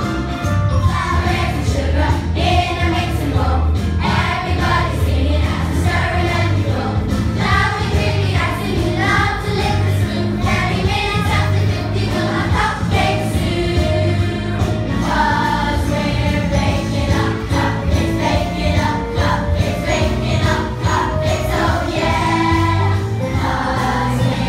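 Children's choir singing a Christmas song together over musical accompaniment with a steady bass line.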